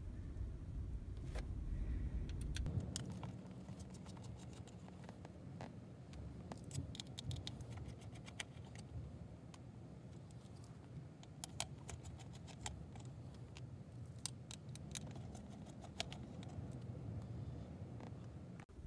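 Light metallic clicks and small taps, scattered and in little clusters, as tiny screws are backed out of a car CD player's sheet-metal top cover with a precision screwdriver and set down, over a faint low rumble.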